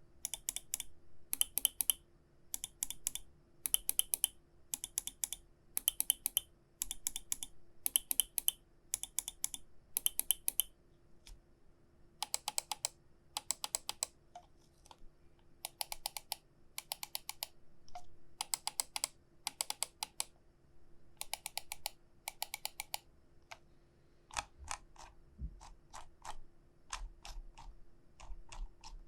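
Ninjutso Sora gaming mouse button clicks, pressed in quick runs of several clicks at a time. The click sound changes partway through, the later clicks carrying more low body than the crisp, bright earlier ones.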